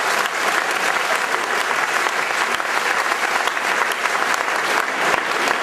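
Theatre audience applauding steadily: a dense clatter of many hands clapping.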